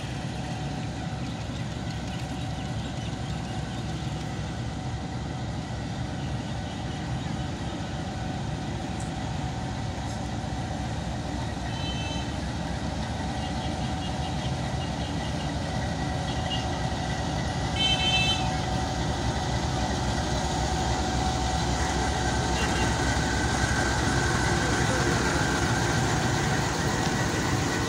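Diesel-electric locomotive engine running as it hauls a passenger train slowly out and passes close by, the rumble growing louder, with the coaches' wheels rolling on the rails near the end. Brief high-pitched toots sound about twelve and eighteen seconds in, the second the loudest.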